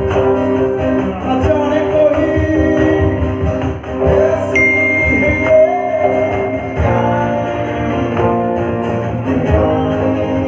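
Live band playing a song: acoustic and electric guitars strummed over a cajón beat, with a male singer singing into a microphone.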